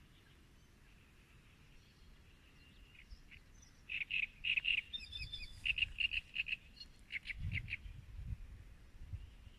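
A small songbird singing: about four seconds in it starts quick runs of short, high chirping notes that come in several bursts for about four seconds. A low rumble sits underneath during the song.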